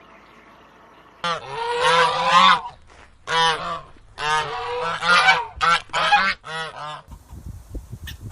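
Farm fowl calling: about five loud, harsh calls in a row, starting about a second in, the first the longest at over a second, the later ones shorter.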